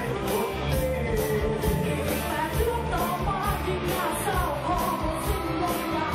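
Live rock-pop band playing with a male singer singing into a microphone over a steady drum beat.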